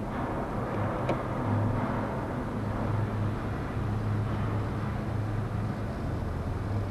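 Steady low mechanical hum of an aerial tramway's cables and machinery as a cable car comes in. A single sharp click sounds about a second in.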